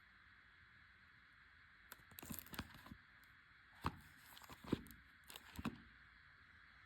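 Packaging or product being handled: a few short crinkles and sharp clicks in three brief clusters, over a faint steady hiss.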